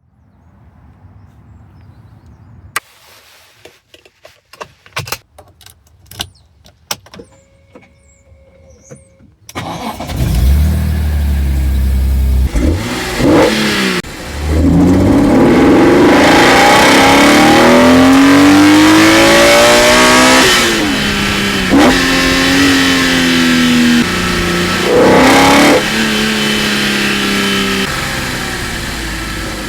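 BMW E46 M3's naturally aspirated S54 straight-six, breathing through individual throttle bodies and a carbon-fibre Eventuri intake. First come a series of clicks and a short beep. About nine and a half seconds in the engine starts, then revs rise in long pulls with loud induction noise, the pitch dropping sharply at a few upshifts.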